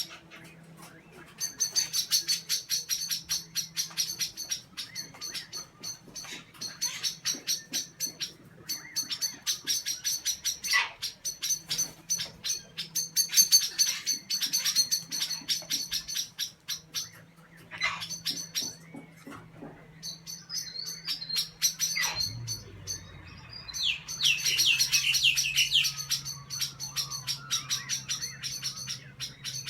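Small birds' rapid, repeated chattering calls in bursts of a few seconds, with a louder run of quick falling notes near the end: alarm calls of small birds mobbing a kookaburra near their nest.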